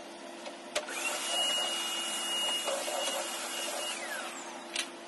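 Cordless stick vacuum cleaner switched on with a click, its motor whining up to a steady high pitch and running for about three seconds, then switched off and winding down. A second sharp click comes near the end.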